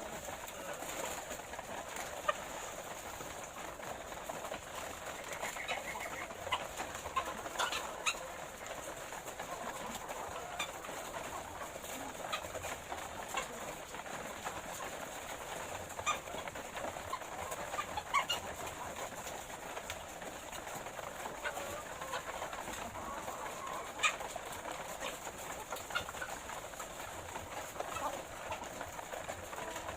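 A flock of ready-to-lay layer hens calling steadily, with scattered sharp clicks and taps among them.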